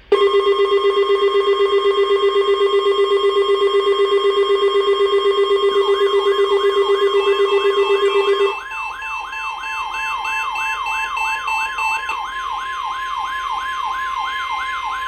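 NOAA Weather Radio's 1050 Hz warning alarm tone sounding steadily and loudly, marking the start of an alert broadcast. Alert receivers' alarms sound over it: a low, rapidly pulsing buzz that stops about two-thirds of the way in, and a warbling siren-like tone that joins about six seconds in and keeps going.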